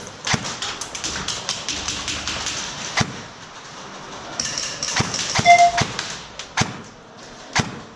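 Airsoft guns firing indoors: a rapid string of sharp snapping shots for the first two seconds or so, then single shots every second or so.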